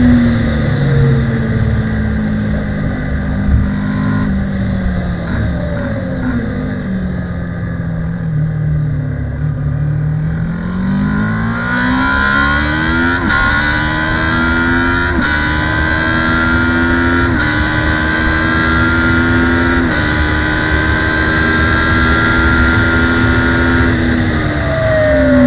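Kawasaki ER-6 650cc parallel-twin race engine heard onboard at racing speed. Its note falls for about ten seconds as the bike slows, then climbs hard in several steps with a brief break at each upshift, and drops again near the end as the rider rolls off.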